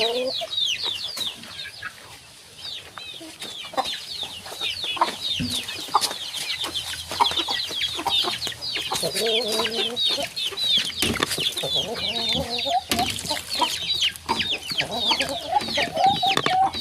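Chickens calling: a dense stream of short, high, falling peeps with lower clucking joining in from about nine seconds on.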